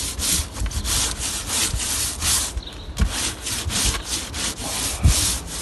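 Stiff-bristled push broom scrubbing back and forth over the boat's bow deck, spreading wood-sealing liquid: quick, even strokes, several a second, with a brief pause near the middle.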